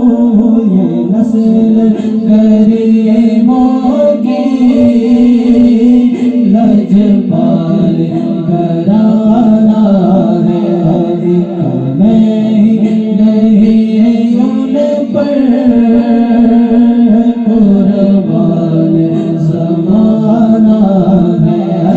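Devotional vocal music: a naat sung in a drawn-out chanting style, a male voice with sustained vocal backing, without pause.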